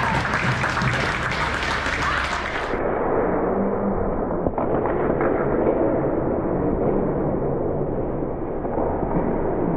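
Noisy ice-rink game sound: spectators and play on the ice echoing around the arena, cut off suddenly about three seconds in. The instant replay follows with duller, muffled audio that has lost all its high end.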